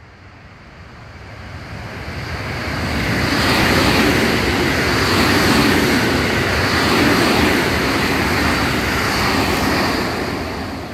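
A JR West Special Rapid electric multiple-unit train passing through at speed without stopping: its running and wheel-on-rail noise swells over about four seconds, holds for about six, then begins to fade near the end.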